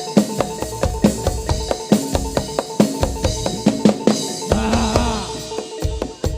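Javanese keprajuritan gamelan music: fast, dense drum strokes over a steady ringing metal tone, with a sliding pitched sound about four and a half seconds in.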